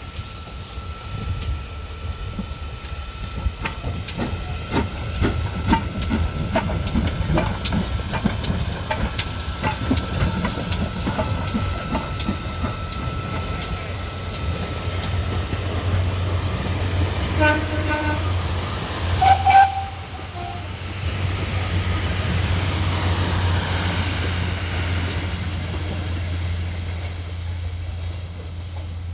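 Steam-hauled train running on the line, with a steady low rumble and the wheels clicking over the rail joints. About two-thirds of the way through come short whistle notes, followed by a spell of steam hissing.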